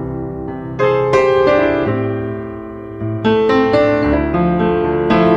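Background piano music: slow sustained chords over a low bass line, with new chords struck about a second in and again a little past three seconds.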